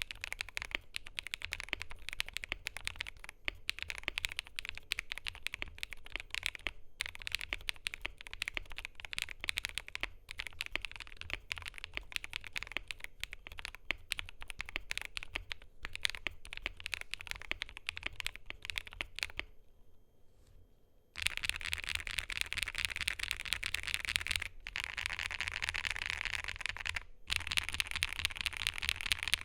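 Typing on a KiiBOOM Moonshadow 81 mechanical keyboard with lubed, filmed Gopolar OUTVA Yang switches on a polycarbonate plate: a fast, steady run of key clacks. About two-thirds through the typing stops for a couple of seconds, then resumes faster and louder.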